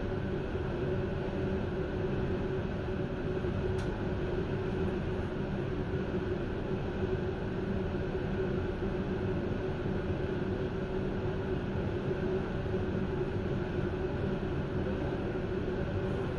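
Steady rumble and hum of a passenger train heard from its rear end while it stands on the line, with a single light click about four seconds in.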